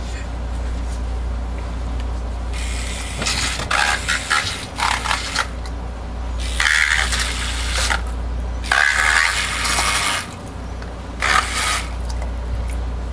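Handheld battery milk frother buzzing in a small plastic cup of soap colourant in several bursts of a second or two, keeping the colour mixed so it does not separate while it is poured.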